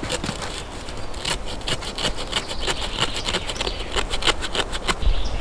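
Knife blade shaving thin curls off a stick of wood, a quick run of short scraping strokes, about two or three a second, as kindling is carved to start a fire.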